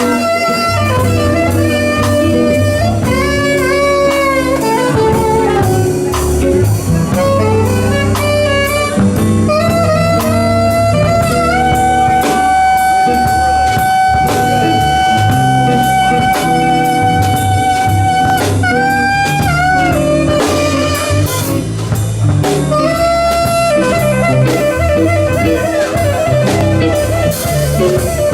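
Instrumental break of a slow blues-soul song: a lead melody with bending notes and one long held note midway, over drums, bass and guitar.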